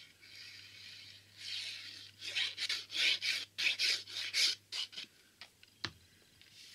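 Plastic tip of a liquid glue bottle scraping along kraft cardstock in a run of short rubbing strokes as glue is squeezed out, then a single knock about six seconds in as the bottle is set down.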